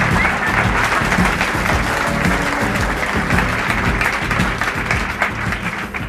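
Audience applauding over music with a steady beat.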